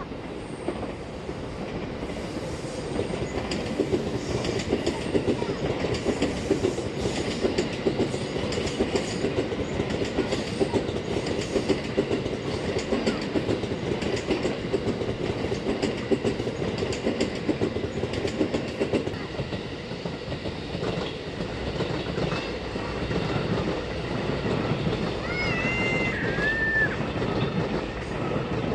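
Electric rapid train on the JR Tokaido Main Line running past below, its wheels clattering over the rails in a steady, rapid clickety-clack. The clatter builds a few seconds in, eases after about twenty seconds, then swells again near the end as a second train approaches.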